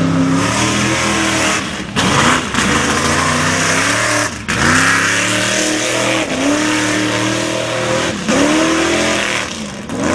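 Lifted mud-bog truck's engine revving hard as it churns through a mud pit. The pitch climbs and then falls back sharply about every two seconds as the throttle is worked.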